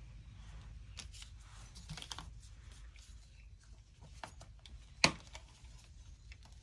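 Quiet handling noise: light rustling and small clicks from gloved hands and small objects, with one sharp click about five seconds in.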